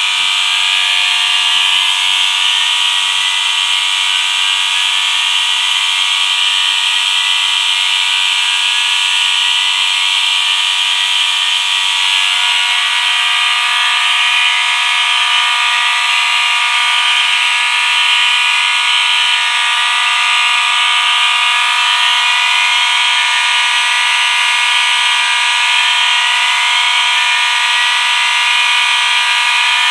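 A bank of fire alarms sounding together, loud and continuous: several steady horn tones layered under repeating sirens whose pitch keeps sweeping upward.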